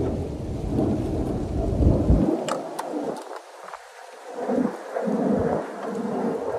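Fabric rustling and handling as a thick quilted mattress pad is lifted and spread across a bed platform, with a heavy low rumble that falls away about two seconds in and a couple of sharp clicks soon after.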